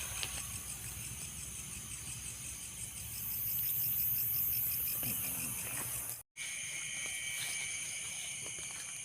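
Night insects chirping in a dense, high-pitched chorus with a fast pulse. About six seconds in the sound drops out for a moment, then returns with a steadier, slightly lower trill.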